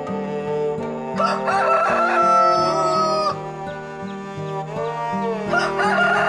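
Rooster crowing twice, about four seconds apart, each crow ending in a long held note that falls slightly at the end. Instrumental background music plays underneath.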